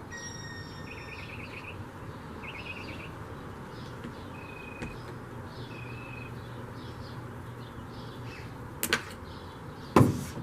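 Small birds chirping and trilling in short phrases. Near the end come two sharp clicks, the second one the loudest.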